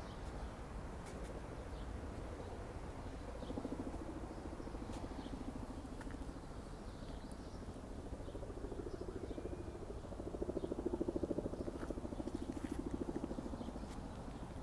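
City park ambience: a steady low traffic rumble, with a motor vehicle's engine pulsing and growing louder from about four seconds in, loudest around eleven seconds, then easing off. Faint scattered bird chirps sound over it.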